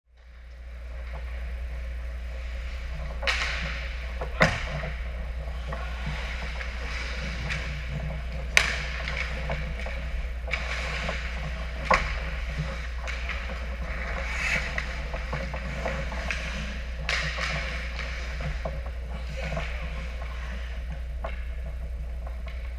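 Ice hockey play on an indoor rink: skates scraping and carving the ice, with several sharp cracks of sticks and pucks striking, over a steady low hum.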